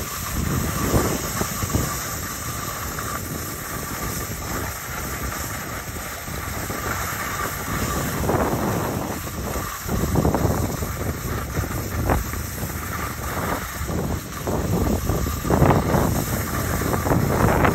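Skis scraping and hissing over hard-packed groomed snow on a downhill run, with wind rushing over the phone's microphone. The noise swells and fades in gusts and gets louder in the second half.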